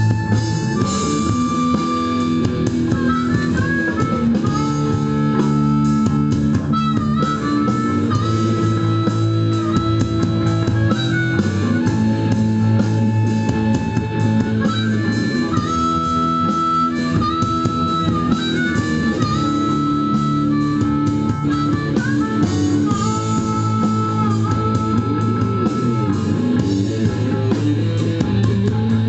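Blues band's instrumental break: a harmonica solo of held notes with short bends, over guitar accompaniment.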